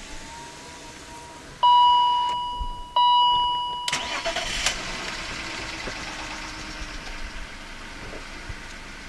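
Two loud electronic chime tones, each fading over about a second. Then a BMW E39's M54 straight-six cranks briefly and starts about four seconds in, on a freshly charged battery and new spark plugs, and settles into a steady idle.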